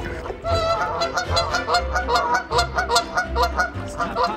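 A flock of Canada geese honking, many short calls overlapping in a rapid, continuous chorus.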